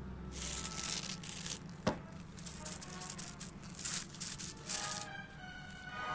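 Animated-film sound effects: repeated bursts of hissing, rasping noise with a sharp click about two seconds in, over a low steady hum. Near the end, music with falling notes comes in.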